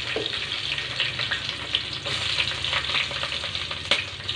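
Sliced onions sizzling in hot ghee and oil with cumin seeds in an aluminium pot, a steady frying hiss with small crackling pops and one sharper click near the end.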